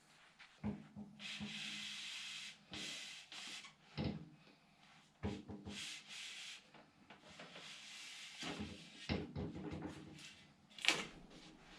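Rubber window seals being pulled and worked off a Land Rover Discovery 1's body, heard as a series of separate rubbing, scraping strokes with a few short knocks.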